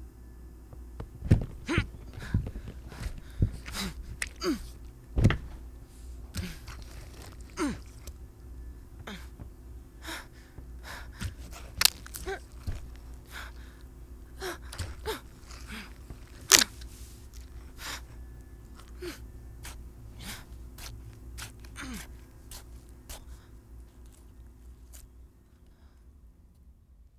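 A long run of irregular sharp thuds and short gasping breaths over a low steady hum, fading out near the end.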